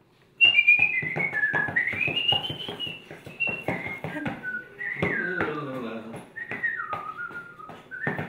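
A whistled tune, one wavering high melody line that starts about half a second in, over a run of quick sharp taps.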